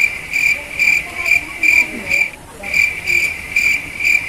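An insect trilling loudly at one high pitch, pulsing about twice a second, with a short break about two seconds in.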